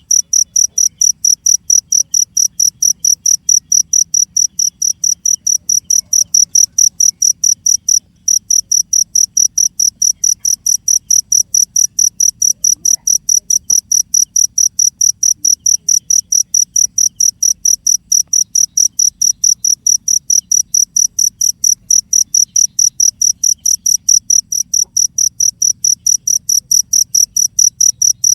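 A cricket chirping: a loud, high-pitched pulsed chirp repeated evenly several times a second without letup, with one short break about eight seconds in.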